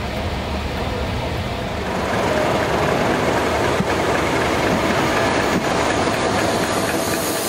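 Diesel locomotive engine running: a steady loud rumble that grows louder about two seconds in.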